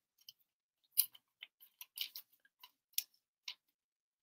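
Light, irregular clicks and crinkles of a trading card and a thin clear plastic sleeve being handled, as the card is slipped into the sleeve; the sharpest clicks come about a second in and about three seconds in.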